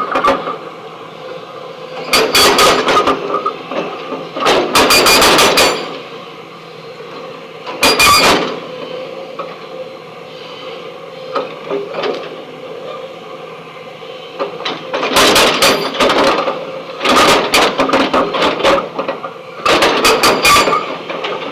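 Backhoe's hydraulic breaker hammering rock in repeated bursts of rapid blows, about six bursts of a second or so each, over the machine's steadily running engine.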